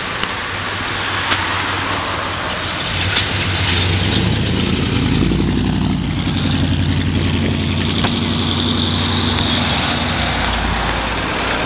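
Chevrolet Chevelle SS V8 engine rumbling as the car pulls away and drives past at low speed, the exhaust note swelling louder about four seconds in and holding steady.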